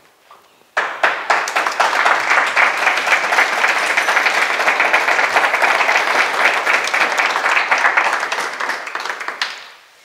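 Audience clapping, starting suddenly about a second in, holding steady and dying away near the end.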